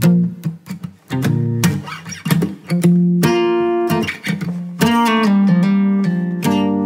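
Guitar intro music: strummed and plucked chords, a fresh chord struck every second or so and left ringing.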